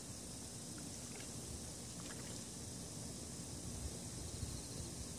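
Quiet outdoor night ambience: a steady high hiss with a low rumble underneath and a few faint ticks.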